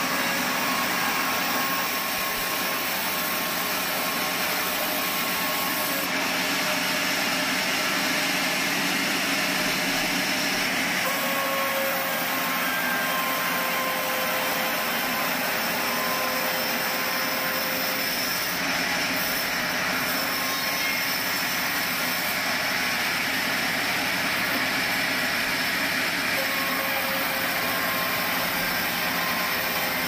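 Sawmill band saw running steadily, its blade ripping lengthwise through a long timber plank: an even, continuous hiss with a faint steady whine.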